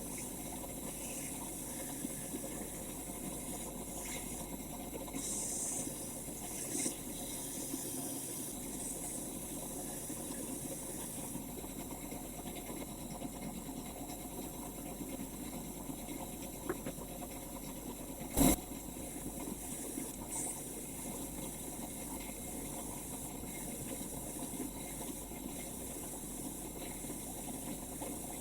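Steady hissing noise with one sharp click about eighteen seconds in.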